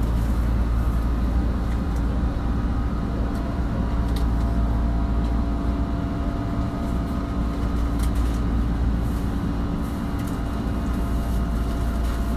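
Tokyo Metro Marunouchi Line 2000-series train standing at the platform, humming steadily while stationary: a constant low rumble with a steady low tone and a fainter higher one.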